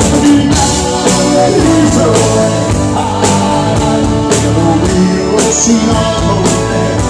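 Live folk-rock band playing at full volume: accordion, electric guitar, keyboards and drums with a steady beat, and a male singer's voice through the microphone.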